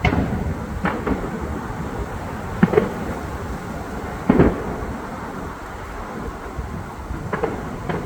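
Aerial fireworks bursting: several booms at uneven intervals, the loudest a little past four seconds in, over a steady low rumble.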